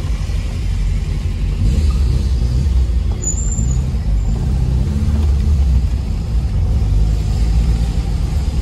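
Tofaş car with an aragaz performance exhaust, heard from inside the cabin while driving: a steady low engine and exhaust rumble that rises and falls slightly in pitch as the throttle changes.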